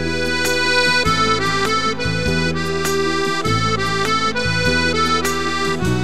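Piano accordion playing a polka-style tune: a melody of held reedy notes over low bass notes that change about once a second.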